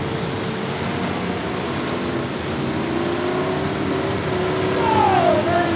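Several race cars' engines running together on the track, a dense steady drone with engine tones slowly climbing. About five seconds in, one engine's pitch falls sharply.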